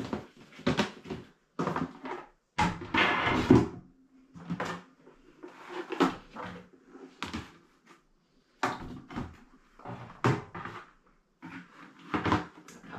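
Plastic cake carriers and food storage containers being handled and set down on cupboard shelves: irregular knocks and clatters of plastic, with a longer, louder clatter about three seconds in.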